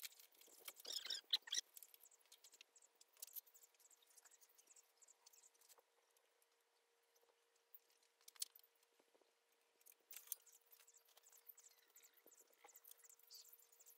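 Faint clicks and light rattles of small bicycle parts being handled and fitted by hand during assembly, with a short cluster of louder clicks about a second in, over a faint steady hum.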